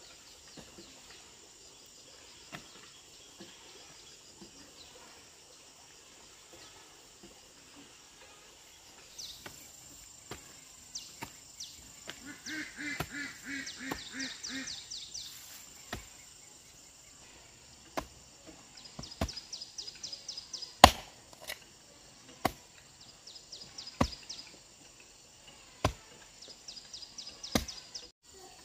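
Single sharp chopping strikes, about one every one and a half to two seconds through the second half, the loudest a little past the middle. Insects chirp in short pulsed bursts throughout.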